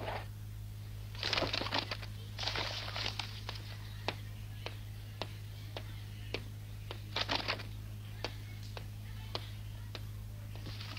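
Quiet rustling of paper letters being sorted, in three short bursts, with a run of light, sharp ticks about two a second through the middle.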